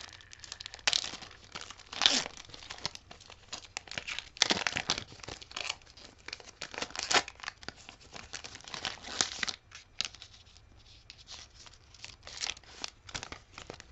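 Foil wrapper of a 2020-21 Panini Prizm Premier League trading-card pack being torn open and crinkled by hand: a run of uneven rips and crinkles, sparser near the end.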